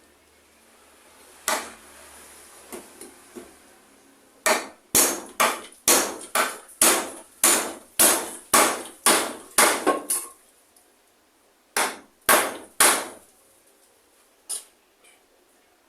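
Hammer blows during a repair: one strike, a few light taps, then a run of about a dozen strikes at about two a second, followed by three more strikes and a last one near the end.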